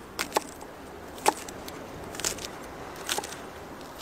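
Chef's knife chopping scallions on a wooden cutting board: five sharp knocks of the blade on the board, the first two close together, then about one a second.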